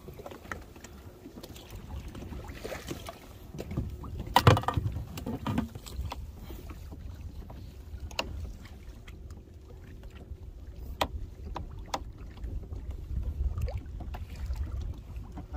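Wind on the microphone and water moving around a pedal kayak's hull as a low steady rumble, with one loud thump about four and a half seconds in and a few sharp ticks later on.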